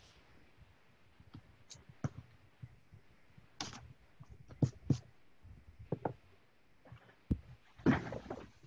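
Hands handling sheets of drawing paper on a table: scattered light taps and clicks, with a short rustle near the end.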